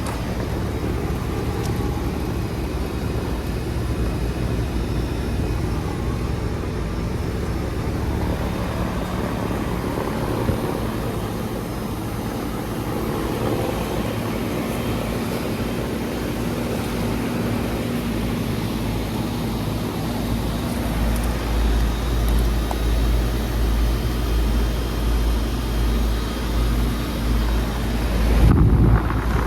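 Residential heat pump outdoor unit running in heat mode: a steady compressor hum under the whoosh of the condenser fan. A heavy low rumble joins about two-thirds of the way through and grows toward the end.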